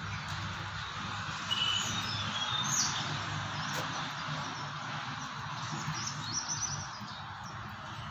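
Birds chirping now and then, short high calls over a steady background noise.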